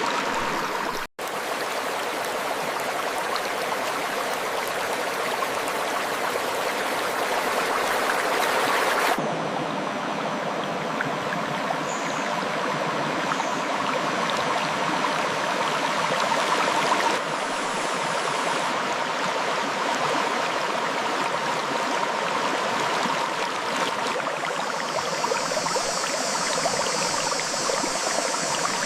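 River water flowing over rocks, a steady rushing and babbling. It drops out for an instant about a second in, and its texture changes abruptly three times, about 9, 17 and 24 seconds in.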